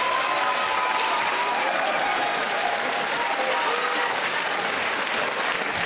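Audience applauding steadily, with laughter mixed in through the clapping.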